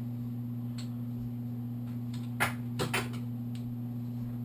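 A few light metallic clicks and clinks of tools being handled at the engine, the loudest a cluster about two and a half to three seconds in, over a steady low hum.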